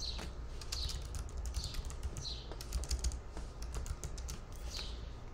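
Keys tapped on a computer keyboard, a run of quick clicks as a folder name is typed, busiest in the middle. Short high chirps repeat in the background.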